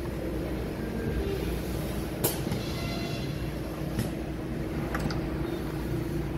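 Injection moulding machine and its take-out robot running in production: a steady mechanical hum with a constant tone. There is a sharp click about two seconds in and another about four seconds in.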